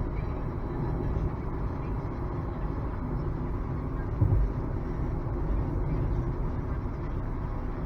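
Road and tyre noise inside a moving Nissan Leaf electric car on the highway: a steady low rumble with no engine note, and a brief thump about four seconds in.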